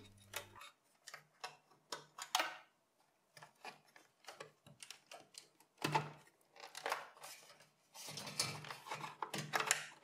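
Light scattered clicks, taps and rustles of cables and plastic connectors being unplugged from a desktop PC motherboard, with a longer run of handling rustle near the end.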